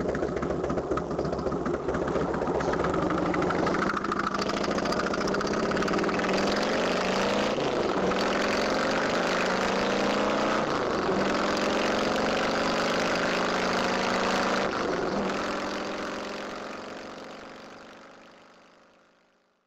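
A vehicle engine accelerating through the gears. Its pitch climbs steadily and then drops with each upshift, three times, before the sound fades out.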